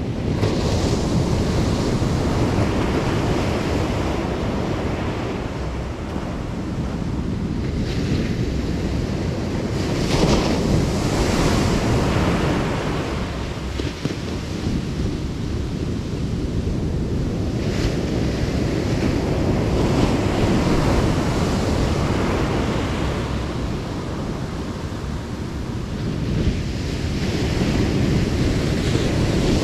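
Ocean surf breaking and washing up the beach, swelling and easing every few seconds as waves come in, with wind rumbling on the microphone.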